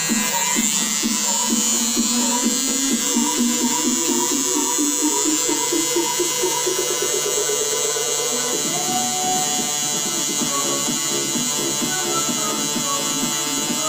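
Tattoo machine buzzing steadily while shading black ink into an EVA foam practice sheet, with music playing over it.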